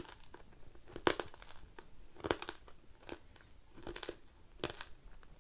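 Crunchy roasted jumbo corn kernels being chewed close to the microphone: a few sharp, irregular crunches as the hard, tough kernels break.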